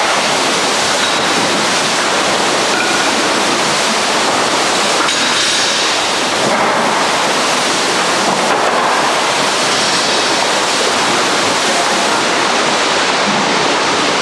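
Steady rushing of churned water in an indoor canoe-kayak training tank as paddlers work their strokes.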